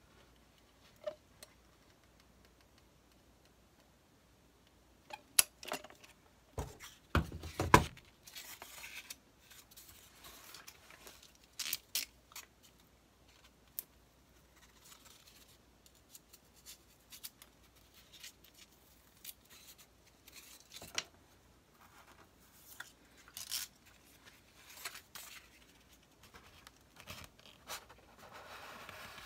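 Scattered clicks, knocks and scrapes of hand work at a foam shelf joint: a caulking gun being handled, then a small flat tool and fingers scraping along the joint. The loudest knocks come in a cluster about five to eight seconds in.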